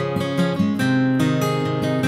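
Background music: strummed acoustic guitar playing a steady chord pattern.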